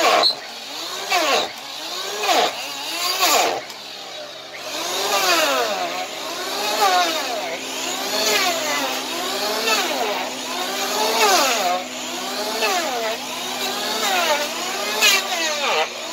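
Corded electric hand planer cutting down the overgrown hoof wall of a draft horse's hoof. The motor whines, its pitch sagging and recovering about once a second as each pass bites into the hoof and comes off again.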